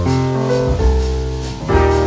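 Instrumental jazz-style background music with deep bass notes, held chords and light cymbal taps.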